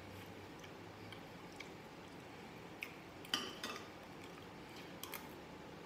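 Quiet eating sounds: a metal spoon clicking against a glass bowl of rice a few times, about three seconds in and again near the end, with soft chewing.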